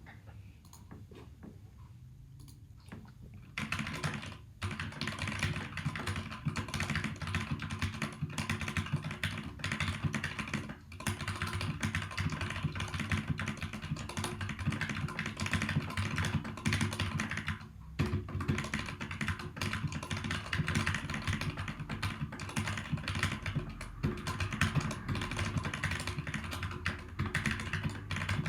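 Fast touch-typing on a Keychron K8 mechanical keyboard with Gateron Red linear switches: a dense, continuous run of key clacks that starts about three and a half seconds in, with a couple of brief pauses.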